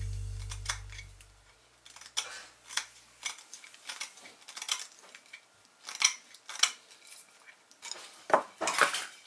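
Small carving knife cutting into a wooden chair-leg piece: irregular short scraping cuts and clicks, with a few louder clicks near the end. Background music fades out in the first second.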